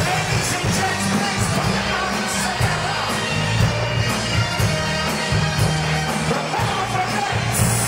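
Female vocal group singing a soul song live over a full band, with a steady bass line and drum beat.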